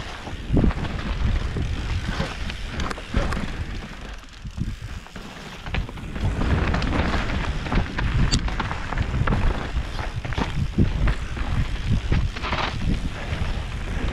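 Mountain bike riding down a rough dirt trail: wind rushing over the microphone, tyres on dirt and stones, and the bike rattling with frequent knocks over bumps. It eases for a moment about four to five seconds in.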